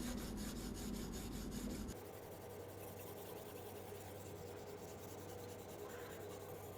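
Oiled fine diamond sharpening stone (20/14 grit on OSB bond) scraping back and forth along a folding knife's edge on a guided sharpener, a soft scratchy rasp while it works the burr. The strokes are quick and close together for the first two seconds, then turn to a softer, steadier scratching with a faint low hum underneath.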